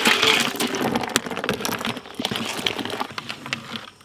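Ice cubes sliding off a steel plate and splashing into a large pot of strawberry milkshake, followed by scattered clinks and knocks that die away over the next few seconds.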